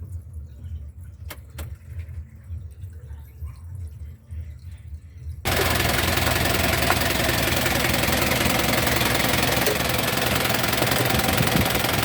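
A low rumble with a couple of faint clicks, then about five and a half seconds in a freshly rebuilt diesel engine is suddenly heard running loudly and steadily.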